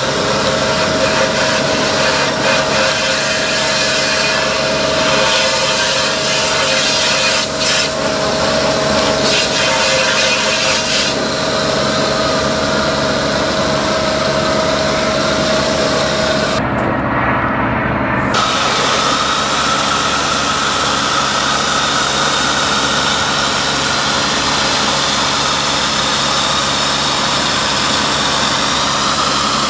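Road Wave onboard electric pressure washer spraying water onto a motorhome's mirror and windshield: a loud, steady hiss of spray with a steady hum under it. The spray cuts out for a second or two about two-thirds through, then resumes with a higher whine.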